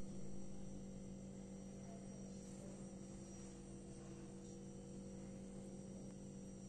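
Steady low hum with a faint high whine over background hiss, with a brief soft bump at the very start.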